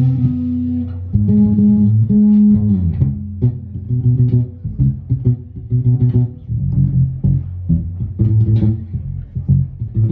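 Live jazz band playing: an electric bass guitar holds long low notes, then from about four seconds in breaks into a choppy, repeating line, over a drum kit with cymbal hits.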